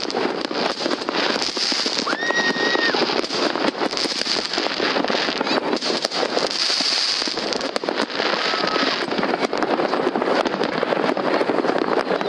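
Fireworks going off all over the city at once: a dense, continuous crackle of many bangs and pops overlapping one another. A short whistle sounds about two seconds in, and a fainter one near the end.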